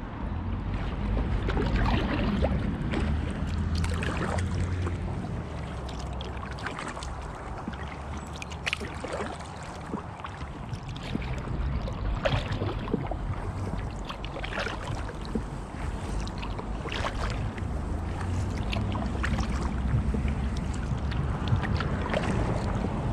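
Kayak paddle strokes in calm water: the blade dips and pulls through, with a small splash or drip every second or two, over a steady low rumble of wind on the microphone.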